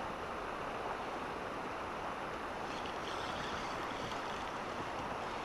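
Steady rushing of a shallow, fast mountain river running over a stony riffle.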